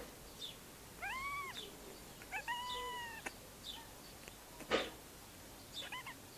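Young kitten mewing: two high, thin mews, the second one longer, followed by a single sudden sneeze, the loudest sound, and a faint small mew near the end.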